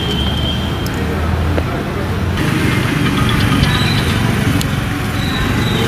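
Outdoor street background: steady traffic and engine noise with low chatter from the crowd, the background changing abruptly about two seconds in.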